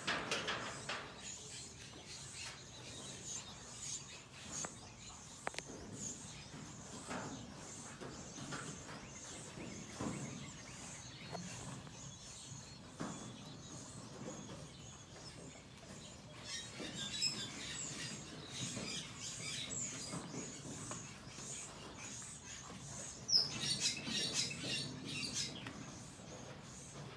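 Birds chirping over a quiet outdoor background, in scattered short calls that grow busier in the second half, with a burst of chirps a few seconds before the end.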